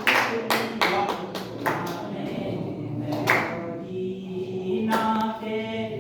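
Several voices singing together in long held notes, with sharp handclaps falling at irregular intervals.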